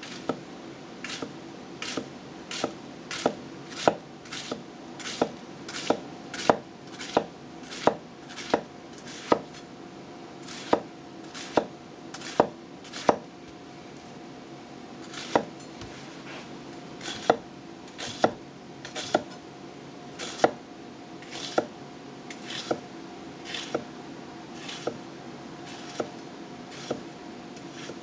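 Teruyasu Fujiwara chef's knife slicing through a halved onion, the blade tapping the wooden cutting board at the end of each cut, about one cut a second. The cuts pause briefly about halfway, then carry on. A steady low hum lies underneath.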